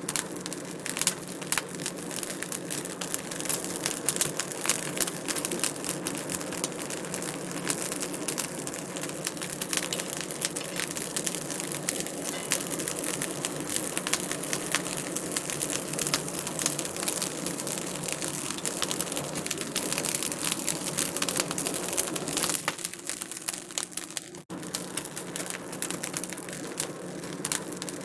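Wood fire crackling in a fireplace: a steady stream of sharp pops and snaps over a soft hiss, with a brief dip in the sound about three-quarters of the way through.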